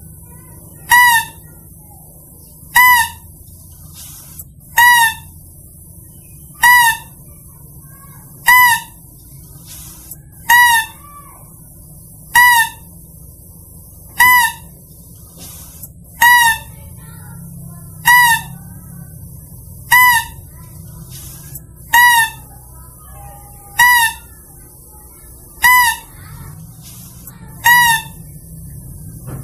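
Mouse-deer (kancil) hunting lure call: a short, high-pitched, wavering call repeated at an even pace about every two seconds, some fifteen times.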